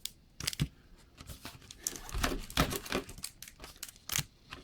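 Pokémon trading card packaging crinkling and tearing as it is opened by hand, in irregular crackles with several louder snaps.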